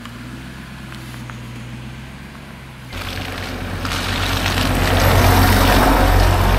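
A vehicle engine running with a low, steady hum, then, about three seconds in, a GMC pickup truck's engine and tyres on sand, rising quickly to loud as the truck drives up to and over the microphone.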